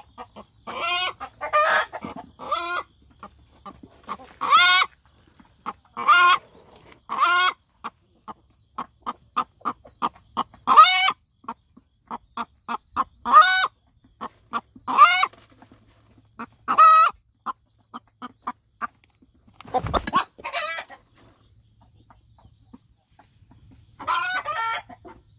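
Hen's egg-laying cackle: loud drawn-out squawks every second or two with runs of short, rapid clucks between them, the call a hen gives around laying an egg, with a rooster joining in. A low thump comes about twenty seconds in, and after a short lull one more squawk comes near the end.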